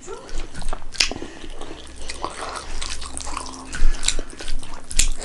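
Close-up eating sounds: wet chewing and mouth clicks, with fingers squelching through rice and lentil daal on a plate. Sharp clicks come throughout, the loudest a little before four seconds in and again near the end.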